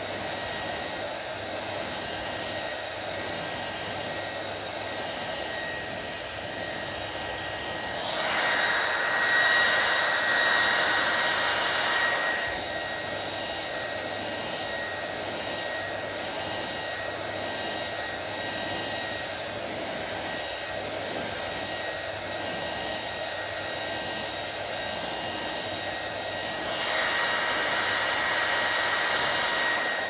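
Handheld hair dryer running steadily as it blows on wet hair, with a faint whine in the airflow. Twice it swells louder and brighter for a few seconds, about eight seconds in and again near the end.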